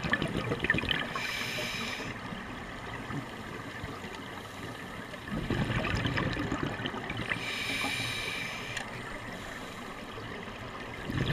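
A scuba diver breathing through a regulator underwater: bubbling, gurgling exhalations about five seconds apart, each followed by a shorter hissing inhalation through the regulator.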